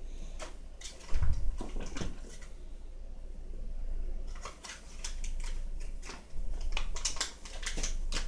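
Kitchen utensils and dishes being handled while food is assembled on a plate: scattered light clicks and knocks, with a low thump about a second in and a busier run of clicks in the second half.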